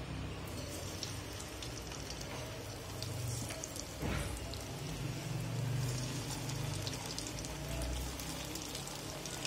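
Breadcrumb-coated onion rings sizzling and crackling as they are dropped into hot oil and deep-fry, the crackle filling in from about half a second in, over a low rumble.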